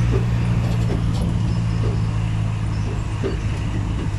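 Sightseeing bus running at steady speed, heard from its open top deck: a steady low engine hum with road and traffic noise.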